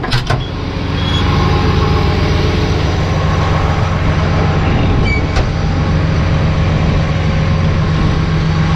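Bulldozer's diesel engine running steadily, its level rising about a second in and then holding, with a sharp click near the start and another about five seconds in.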